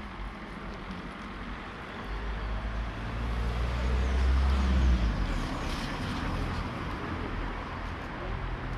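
Road traffic: a vehicle passing on the street, swelling to its loudest about four to five seconds in, then fading.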